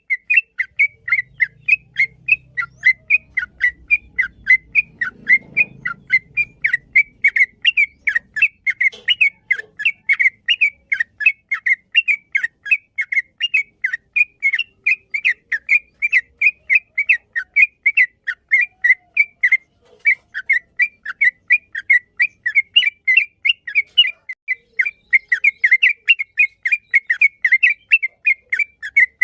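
Yellow-vented bulbul (trucukan) singing a long unbroken run of quick, chirpy whistled notes, about four a second.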